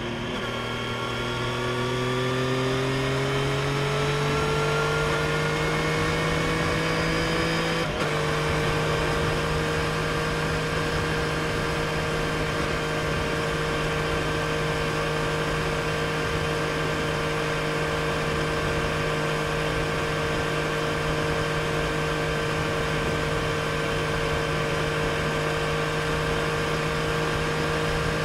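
Triumph Street Triple RS's 765 cc inline three-cylinder engine through its stock exhaust, heard onboard while riding. The engine note climbs steadily under acceleration, breaks briefly about eight seconds in, then holds a steady pitch at cruising speed over a constant rush of wind and road noise.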